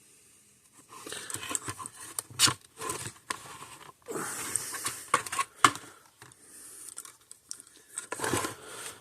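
Soldering iron tip sizzling and crackling as it reflows solder and burns through the conformal coating on a circuit board, with irregular sharp crackles and pops among stretches of hiss.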